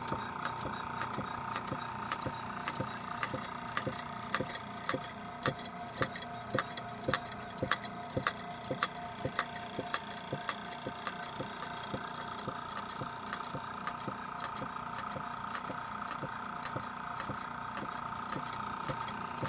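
Antique Stuart No. 9 model steam engine running on compressed air at about 10 psi, with a fast even ticking of its moving parts and sharper clicks about twice a second over a steady hum.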